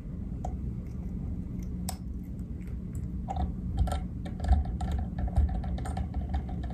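Scattered light clicks and ticks from hands working a Norvise rotary fly-tying vise and a thread bobbin, over a low steady hum.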